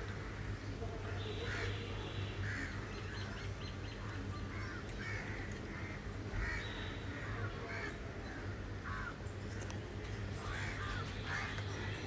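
Batata vadas deep-frying in a pan of hot oil with a faint sizzle, under short bird calls repeated about once a second, which are the loudest sound. A low steady hum runs underneath.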